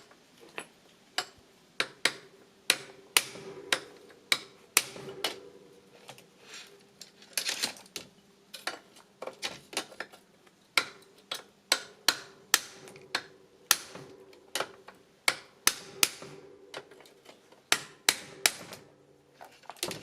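Repeated hammer blows on a bicycle crank arm near its base, knocking it off the bottom-bracket spindle without a puller. The blows are sharp metallic strikes with a short ring, coming irregularly at about two a second.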